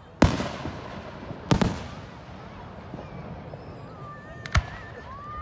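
Aerial fireworks bursting: three loud bangs about a fifth of a second in, a second and a half in (a quick double), and four and a half seconds in, each trailing off in a rumbling echo over steady crackling. Faint rising and falling whistles sound near the end.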